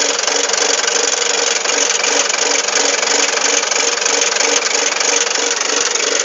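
D30A bulldozer's diesel engine running steadily, with an even low pulse a few times a second.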